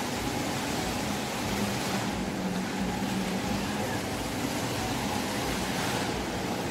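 Steady wash of shopping-mall ambience: an even background rush with a faint low hum and no distinct events.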